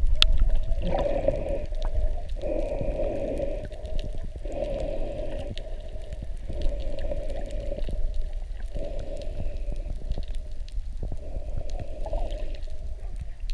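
Muffled underwater noise from a camera held under the water: a steady low rumble with a swishing surge that comes and goes about every two seconds.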